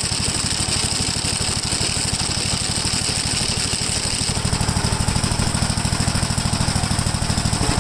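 Gravely walk-behind tractor's engine running with its sickle bar mower attached, with a fast, even chattering pulse that grows louder a little past halfway.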